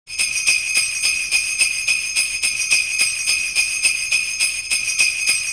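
Sleigh bells jingling in a steady rhythm, about four shakes a second.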